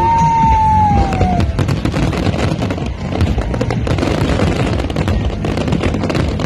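Fireworks display: a dense run of bangs and crackles from exploding shells and crackling stars, with one whistle in the first second or so that falls slowly in pitch.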